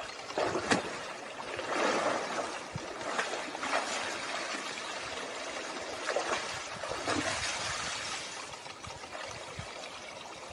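Creek water trickling, with irregular swishes and rustles as a white moose wades out of the water and pushes through tall grass and brush, and one sharp click about a second in.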